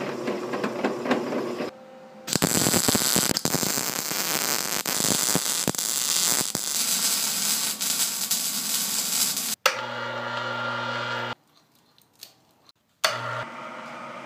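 A drill press cutting into a steel plate, then about seven seconds of steady crackling from electric arc welding as a nut is welded onto the steel plate. Near the end come a shorter steady hum and a brief pause.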